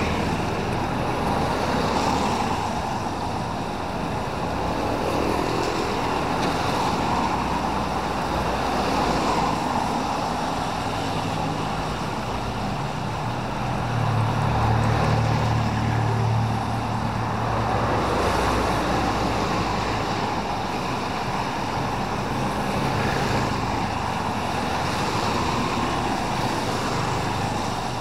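Street traffic on a wet road: a steady hiss of tyres on wet asphalt, with motorbike engines passing and the loudest engine hum about halfway through.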